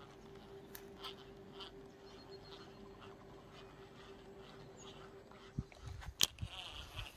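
Faint outdoor ambience: a steady thin hum with scattered faint chirps, then low bumps of the phone being handled and one sharp click about six seconds in.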